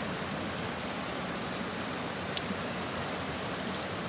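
Shallow river rushing over rocks in small rapids: a steady hiss of running water. A sharp click stands out about two and a half seconds in, with two fainter ticks just over a second later.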